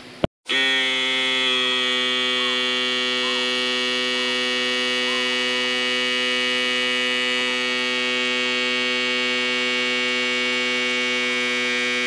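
A loud, perfectly steady buzzing tone with many overtones. It starts abruptly after a brief dropout, holds unchanged in pitch and level, and cuts off suddenly near the end.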